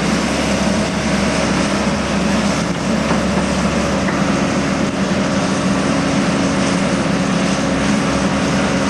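Engine of an excavating machine running steadily, with a constant low hum.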